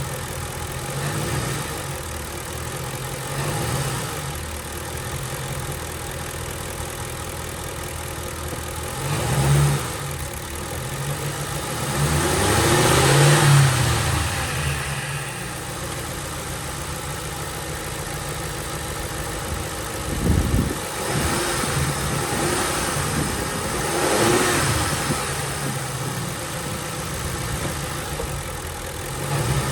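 2007 Ford Crown Victoria's 4.6-litre V8 idling and revved up and down several times under throttle, the longest and loudest rise about twelve to fourteen seconds in. The engine is revved in gear to bring out a rattle on the passenger side that only happens when the gas is pressed.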